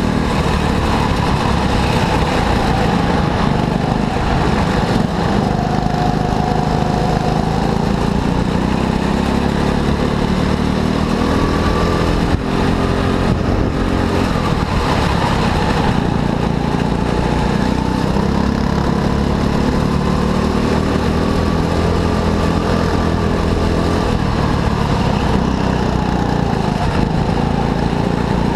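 Go-kart engine running without a break, its pitch rising and falling as the kart speeds up and slows down.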